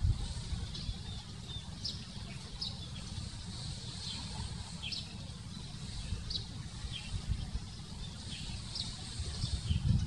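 Small birds chirping outdoors: short, high, downward-slurred chirps come irregularly, about one to two a second, over a steady low rumble.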